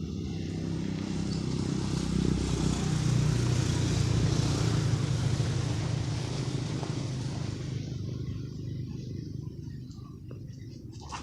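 A motor vehicle driving past: an engine hum and tyre rush that grow louder over the first few seconds, peak about four seconds in, and fade away by about eight seconds in.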